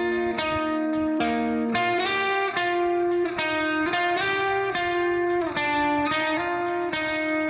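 Background music: guitar playing a melody of held notes, changing every half second or so.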